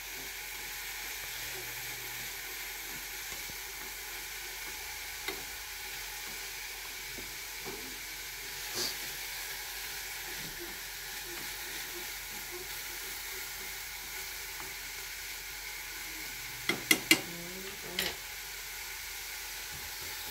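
Ingredients sizzling steadily in a pan as they are sautéed until soft. A few light knocks come near the end.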